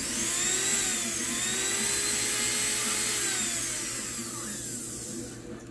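Faet Quick Mixer's brushed electric motor running at high speed, its whine rising and falling, then stopping just before the end. This is the test run after the switch contact plates were raised, and the motor now starts.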